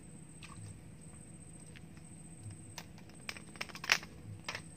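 Handling noise: scattered sharp clicks and crackles in the second half, loudest about four seconds in, as hands work the bait, line and mangrove wood close to the microphone. A thin steady high whine runs underneath.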